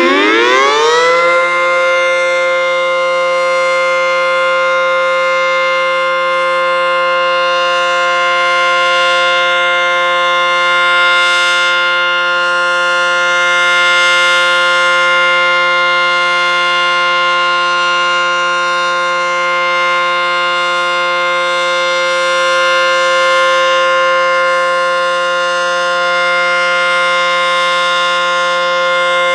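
ACA Banshee 115 electromechanical tornado siren sounding: its pitch climbs in the first second or two, then holds one steady tone with many overtones. The loudness swells and eases slightly. A held steady tone is the alert signal of an outdoor warning siren.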